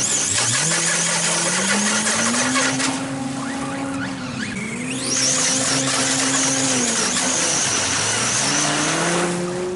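Electric drivetrain of a Basher BSR 4WD rally RC car whining as it hydroplanes across water, its pitch climbing with the throttle, dipping about four and a half seconds in and again near seven and a half seconds, then climbing back, over a hiss of spray.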